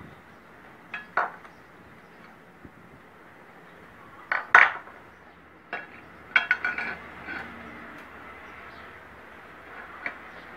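Steel parts clinking and knocking as a bearing plate is handled and fitted against a welded steel gearbox housing: a few scattered metallic strikes, the loudest about four and a half seconds in, and a quick rattle of clinks at about six and a half seconds.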